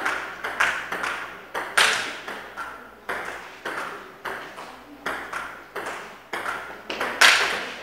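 Table tennis rally: the ball clicks sharply on the table and off the paddles, about two hits a second, each click trailing off in a short echo, with one louder hit near the end.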